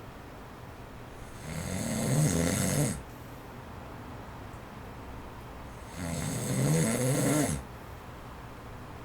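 Snoring of a man in his forties who has sleep apnea: two snores, each about a second and a half long, about four and a half seconds apart. Under them runs the faint steady whoosh of an electric fan on its low setting.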